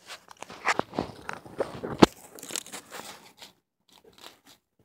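Handling noise from the camera being picked up and moved close to the microphone: a run of clicks, knocks and rubbing, with one sharp knock about two seconds in, dying away near the end.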